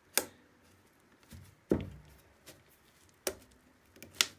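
Sharp metallic clicks and knocks from a carburettor being taken apart by hand, five in all, spaced irregularly about a second or more apart, with quiet between them.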